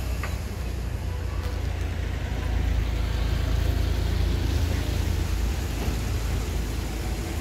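Steady low rumble of outdoor road traffic noise, swelling slightly for a couple of seconds in the middle.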